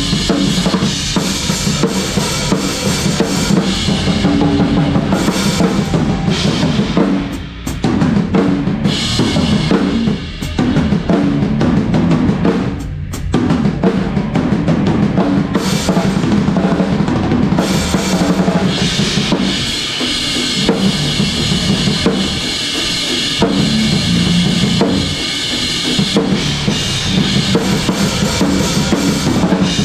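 Drum kit playing a rock song at full volume: kick drum, snare and cymbals, with steady sustained instrument tones underneath. There are three short breaks in the playing, about a third of the way in and just before the midpoint.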